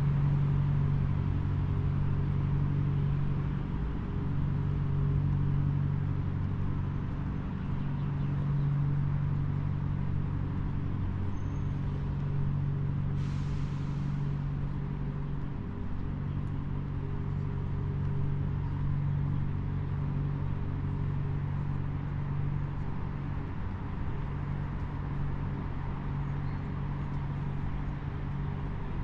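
A steady low engine drone whose hum swells and dips every couple of seconds and slowly fades, over a wash of city background noise. A short hiss about thirteen seconds in.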